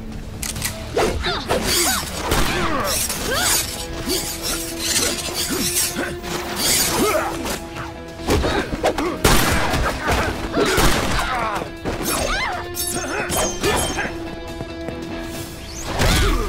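Action film soundtrack: dramatic score with held notes under fight sound effects. There are sweeping whooshes, repeated hits and crashes, and a heavy low impact near the end.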